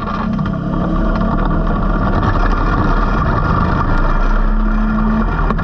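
Engines running steadily as a four-wheeler pushes a sprint car to bump-start it, heard from the car's cockpit.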